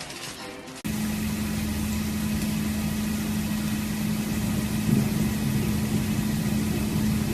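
A steady mechanical hum, like a motor or engine running, with a low drone that starts abruptly about a second in.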